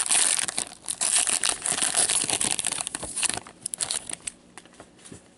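Trading-card pack wrapper being torn open and crinkled by hand, a dense crackling rustle that thins to a few ticks and dies away after about four seconds.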